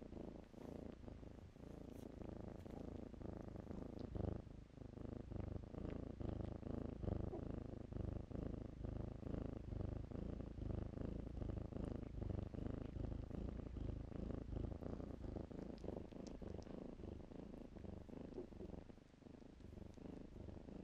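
Kitten purring steadily while being stroked, a low fast rumble that swells and fades about once a second.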